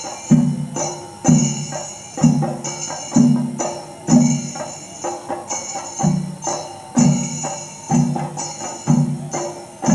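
Kerala chenda drums played with sticks in a procession beat, with a heavy stroke about once a second and quicker lighter strokes between. Metal hand cymbals ring between the strokes.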